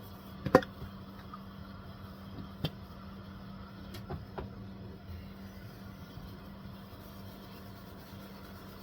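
A few light clicks and taps from a small metal tin being handled and polished, over a steady low hum.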